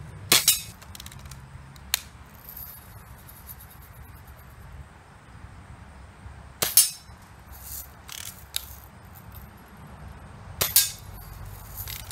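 Daisy Red Ryder lever-action BB gun firing three sharp shots, about six and then four seconds apart, with lighter mechanical clicks between shots.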